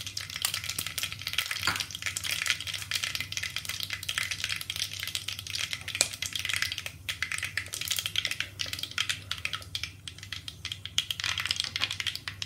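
Mustard seeds and whole spices (cinnamon, cloves and cardamom) crackling and sizzling in hot oil in a handi, a dense run of small pops over a steady hiss, as the spices are tipped in at the start.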